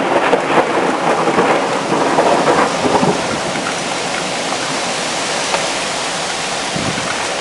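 Heavy rain pouring down, with a thunderclap rumbling after a nearby lightning strike. The thunder dies away over the first few seconds, leaving steady rain.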